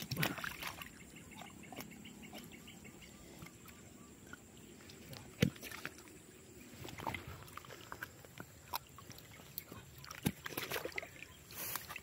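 Wet mud and shallow ditch water squelching and sloshing as a wooden pole is worked in the mud, with a few sharp knocks, the clearest about five and a half seconds in and again about ten seconds in.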